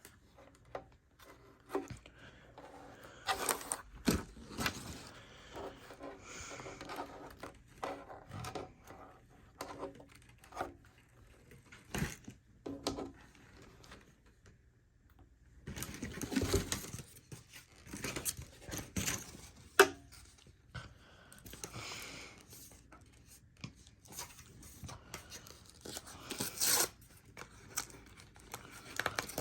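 Paper and packaging being handled: irregular tearing, rustling and scraping with small taps, as Post-it note pads are unwrapped and handled on a table, with a short quiet pause about halfway through.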